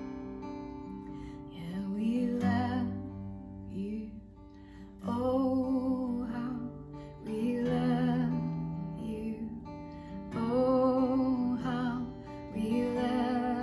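A woman singing held notes with vibrato in phrases of a second or two, over a strummed acoustic guitar.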